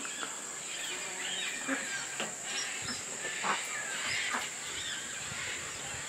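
Black cockatoos calling from the trees in a series of short sweeping calls, over a steady high-pitched hum of insects.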